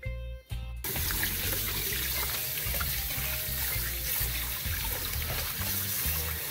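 Kitchen tap running into a stainless steel pot as ears of fresh corn are rinsed under the stream by hand. The water starts suddenly about a second in, over background music with a steady bass beat.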